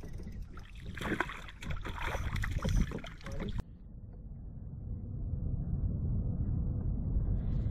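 Water sloshing against a kayak hull with wind on the microphone, broken by a few sharp knocks and splashes. About three and a half seconds in it changes abruptly to a low, steady wind rumble that slowly grows louder.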